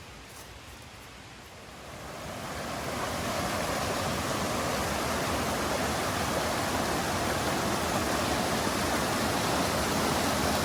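Rushing mountain stream. The water noise swells from about two seconds in, then runs steady.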